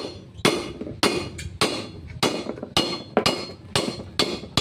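Hammer striking a socket used as a drift, knocking a king pin bushing out of a Mitsubishi Canter steering knuckle: about ten sharp metal-on-metal blows, roughly two a second, each with a brief ring.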